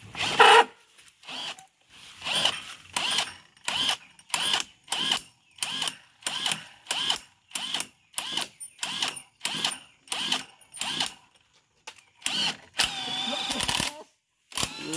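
Cordless drill-driver run in short trigger bursts, about two a second, then one longer run near the end, as it works a bolt out of a bamboo post.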